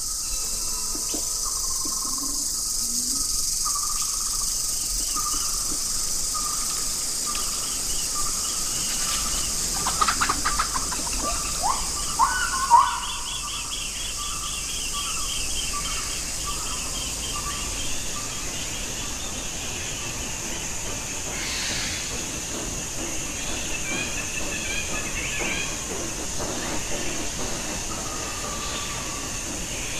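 Jungle ambience: a steady high hiss of insects under birds calling. A short flurry of louder chirps and calls comes about ten to thirteen seconds in, followed by a fast run of repeated high notes.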